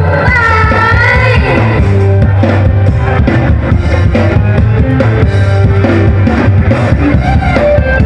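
Live Isan mor lam band music played loud over a stage sound system: a bending sung phrase near the start, then guitar and other amplified instruments over a steady drum beat and heavy bass.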